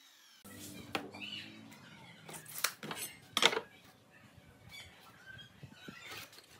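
A metal speed square being handled on a pine board: knocks and scrapes as it is set down and positioned, with the loudest knock about three and a half seconds in. Later come light scratches as a pencil marks a line along it.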